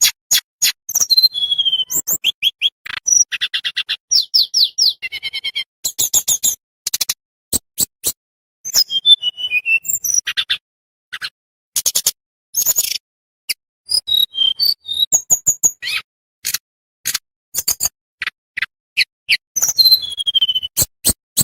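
Tledekan bambu songbird singing: a fast, busy run of sharp high ticks, short trills and falling whistled notes, broken by brief pauses.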